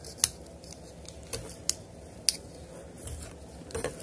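Close handling noise: a few sharp, irregular clicks and light scrapes as fingers work a piece of tubing over the wiring on a carbon-fibre drone arm.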